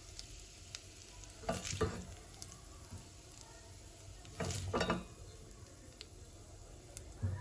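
Food frying in a pan with a faint steady sizzle, and a utensil stirring it in two short bursts, with a light knock near the end.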